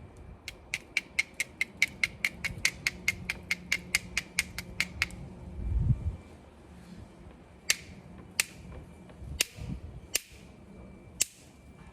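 Obsidian being knapped into a stone tool: a quick, even run of light sharp clicks at about five a second, stopping about five seconds in. A dull thump follows, then five separate sharp clicks spaced about a second apart.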